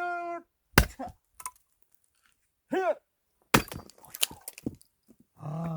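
Axe blows splitting firewood logs: two sharp strikes about three seconds apart, with smaller cracks of splintering wood after the second. A man's short grunt of effort comes just before each swing.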